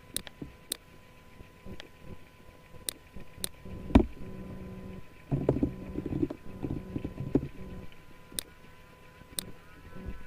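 Computer mouse clicks, single sharp clicks scattered through, with a heavier knock about four seconds in. In the middle, a quick run of keyboard key presses over a low drone.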